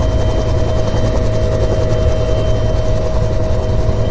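UH-1 Huey helicopter heard from inside its open cabin: the T53 turboshaft and two-bladed rotor running loud and steady, with a steady whine over a low drone.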